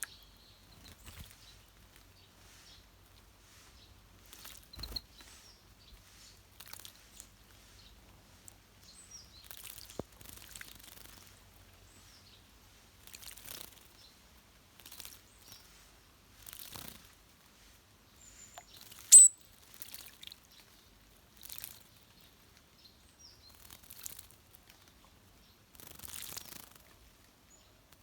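Wild birds at a water bath: short splashing bursts every second or two, with scattered chirps and one sharp high chirp about two-thirds of the way through, the loudest sound.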